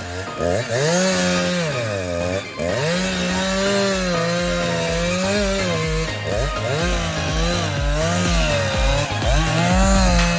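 Two-stroke chainsaw cutting wood, its engine note dipping under load and rising again every second or two.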